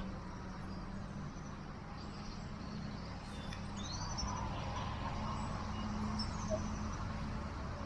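Outdoor ambience: a steady low rumble with a faint steady hum, and a few faint high bird chirps about three to four seconds in.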